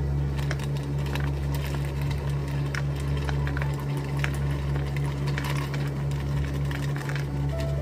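Ice cubes tipped from a stainless steel ice scoop, clinking and rattling into a plastic cup of drink in many small clicks, over a steady low machine hum.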